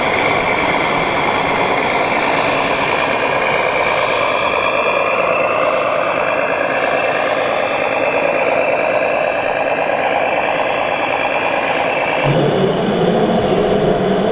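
Scale RC trucks running in an exhibition hall, with a steady simulated diesel engine sound and hall noise. About twelve seconds in, the sound changes suddenly to a deeper, steady engine note.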